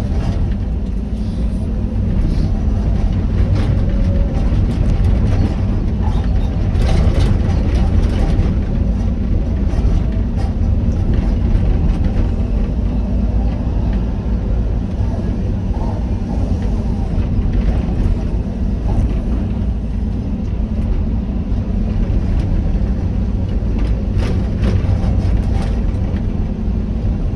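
Excavator's diesel engine running steadily under work, with a few brief rattles or knocks over it.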